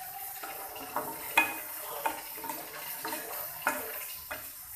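A steel spoon stirring hot milk in an aluminium saucepan, clinking sharply against the pan about six times, over a steady hiss. The milk is being stirred so that the added sugar dissolves.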